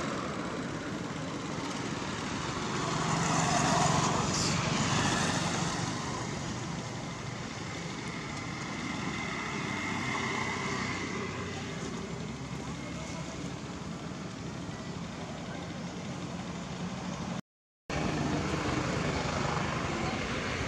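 Steady outdoor background of road traffic, with a vehicle swelling louder about three to five seconds in. The sound cuts out completely for a moment near the end.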